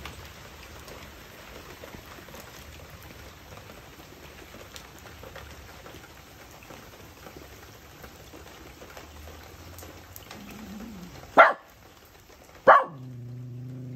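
Steady patter of rain, then a puppy barks twice, sharp and loud, about a second apart near the end, followed by a low drawn-out grumble.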